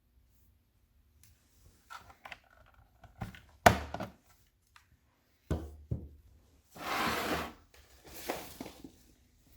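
Hard objects being handled and set down: a series of sharp knocks and thunks, the loudest about three and a half seconds in, followed by two longer scraping or rustling sounds.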